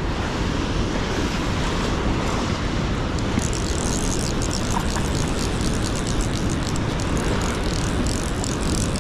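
Steady rush of a fast, high river flowing below a dam spillway, with small waves washing onto the gravel shore. A brighter, hissier splashing joins about three and a half seconds in.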